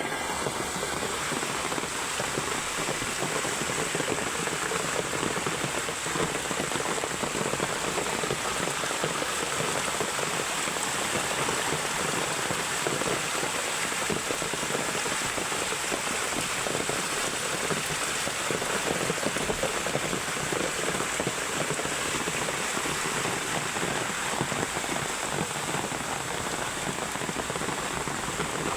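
Heavy rain pouring steadily, a dense even hiss of drops striking surfaces.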